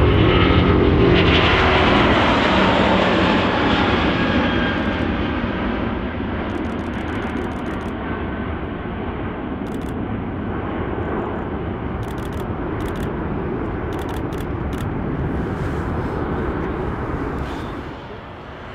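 Airbus A380's four jet engines at takeoff thrust as the airliner lifts off and climbs away, loudest at lift-off and fading steadily as it recedes. A few short faint clicks come in the middle, and the sound drops quieter shortly before the end.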